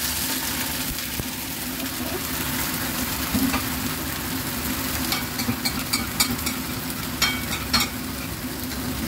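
Hot non-stick frying pan of browned chicken wings, green beans and carrots sizzling steadily as the reserved steaming liquid is poured in and bubbles. A run of sharp clicks and crackles comes about halfway through.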